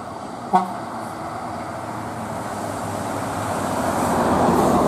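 Mercedes-Benz intercity coach approaching and passing close by, its diesel engine and tyre noise growing steadily louder toward the end. A short sharp sound comes about half a second in.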